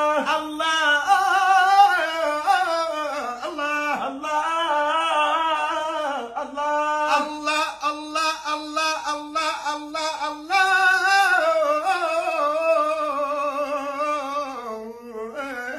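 A man singing a zikr, a Sufi devotional chant, unaccompanied, in a high voice with a wavering, ornamented melody.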